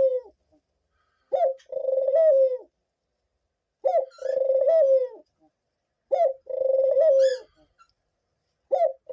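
A pet dove cooing close by, repeating the same call about every two and a half seconds: a short rising note, then a longer rolling coo that falls away at the end. This is the repeated cooing of a male the owner calls a bit hormonal.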